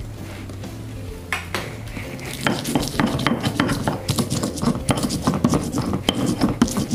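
Stone pestle crushing and grinding bird's-eye chillies in a stone mortar (Indonesian ulekan and cobek). A few single taps come first, then from about two and a half seconds in a fast, uneven run of stone-on-stone knocks and gritty scrapes.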